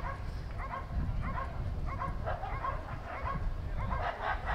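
A working dog barking steadily and rhythmically, about three barks a second, at a helper standing in a hide: the hold-and-bark (Verbellen) of the protection phase of a working-dog trial.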